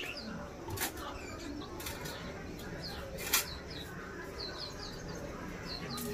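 A German shepherd puppy eating from an enamel bowl, with a few sharp clicks and knocks as it licks and noses the bowl; the loudest comes about three seconds in. Small birds chirp in short repeated notes from about halfway through.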